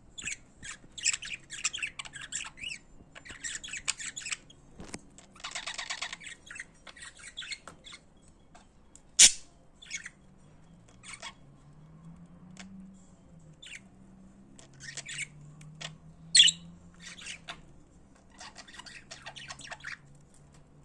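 Pet budgerigars chattering and warbling in irregular bursts, with two loud sharp squawks, one about nine seconds in and another about sixteen seconds in.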